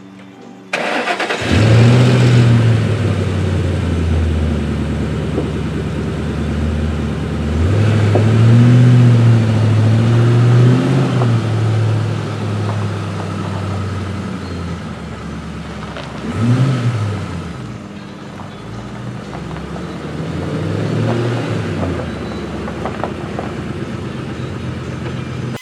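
A car engine starting about a second in, then idling with several blips of the throttle: one longer rev in the middle and two shorter ones later.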